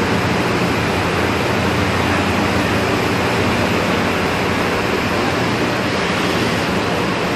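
Steady loud industrial noise of a poultry processing plant: an even hiss with a low machine hum beneath it, from the plant's machinery and ventilation.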